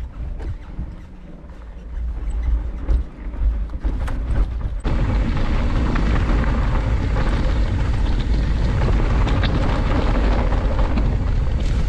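Wind buffeting the handlebar camera's microphone along with tyre rumble from a mountain bike on a dirt trail, with a few sharp clicks early on. The noise becomes much louder and steadier at a sudden cut about five seconds in.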